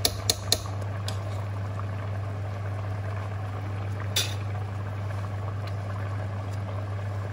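Large stainless steel pot of fumbwa stew (greens with peanut butter) at a rolling boil, bubbling steadily. Two quick taps come right at the start, and a single sharp knock about four seconds in.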